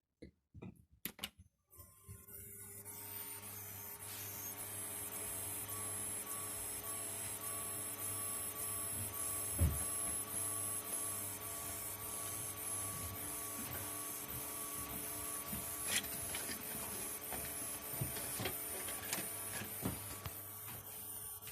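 Desktop computer powered on but failing to boot: its fans spin up over a couple of seconds and keep running with a low hum and a steady high-pitched whistle that pulses, plus a few clicks. The whistle and squeak and the unsteady fan speeds go with the black screen and no-boot fault.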